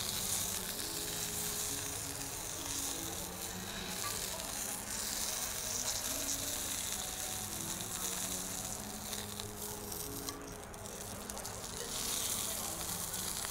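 Pork chops sizzling in a hot pan while their sides are seared. The sizzle thins out briefly a little past halfway and comes back strongly near the end.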